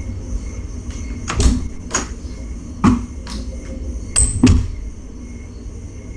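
Footsteps and a door as a person leaves the room: about six knocks and thuds over three seconds, the last pair with a brief high squeak. A steady low hum runs underneath and drops a little near the end.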